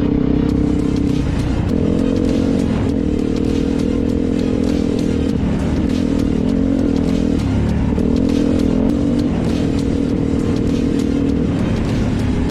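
A vehicle engine running at a steady, slightly wavering pitch, with rattles and clicks throughout.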